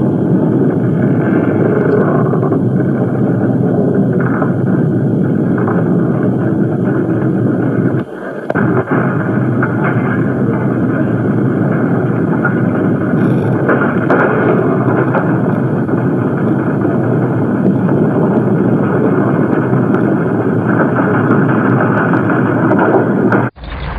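Earthquake sound effect: a loud, continuous deep rumble with no distinct tones. It dips briefly about eight seconds in and cuts off abruptly just before the end.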